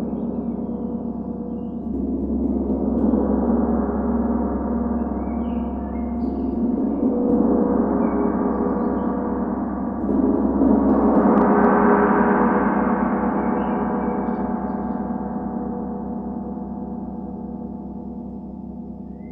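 Large gong played softly with a mallet, its sustained shimmering wash swelling three times, about 2, 7 and 11 seconds in, then slowly dying away over the last several seconds.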